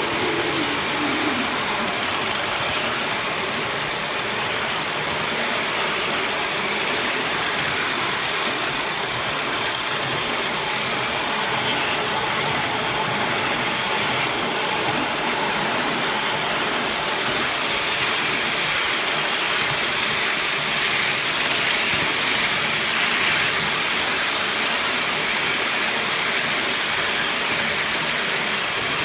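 LBSC Heilan Lassie 3.5-inch gauge coal-fired live steam locomotive running steadily at speed along the track: a fast, even chuffing and rattle that keeps on without a break.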